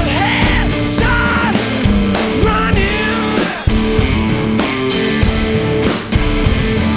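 Live rock played by a duo on electric guitar and drum kit, with a voice singing over the first few seconds and then the guitar and drums carrying on with steady cymbal and drum hits.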